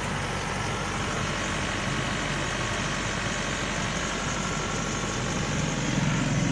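Isuzu Panther engine idling steadily through its stock exhaust, heard near the tailpipe, before any aftermarket exhaust tip is fitted.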